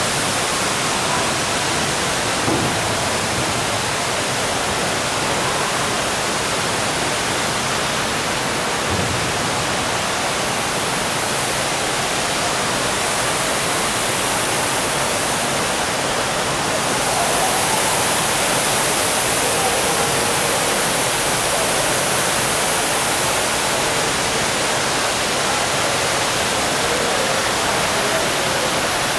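Tall indoor waterfall pouring down a planted artificial mountain: a steady, even rush of falling water, with faint voices in the background.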